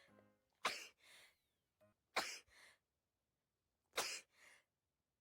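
A woman sneezing three times in a row, about one and a half seconds apart, each sharp sneeze trailed by a softer one.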